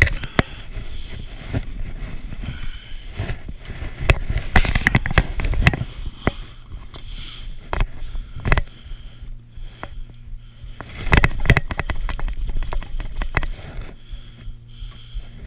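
Skis scraping and crunching over snow on a downhill run, with wind buffeting a body-mounted action camera's microphone and irregular knocks and clicks. Heavier gusts come a few times.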